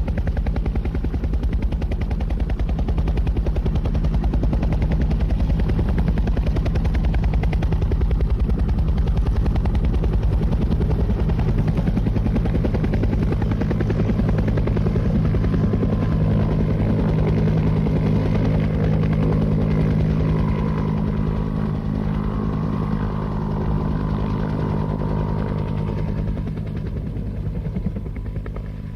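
Helicopter running with steady, rapid rotor-blade chop over a deep engine drone, with a faint higher whine in the middle stretch; it grows quieter over the last few seconds.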